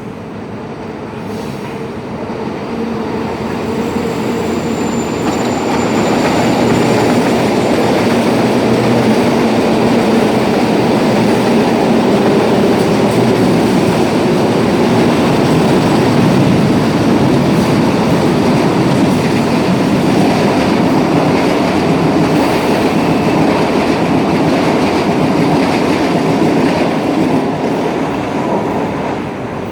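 Electric passenger train passing on the tracks. It grows louder over the first several seconds, then holds a steady running rumble of wheels on rails.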